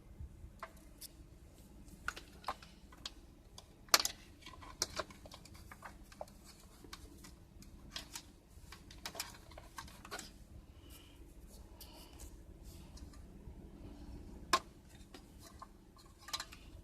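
Faint, scattered clicks and taps of a cable and plastic dashboard trim being handled while wiring is fed behind a car radio, with a sharper click about four seconds in and another a couple of seconds before the end.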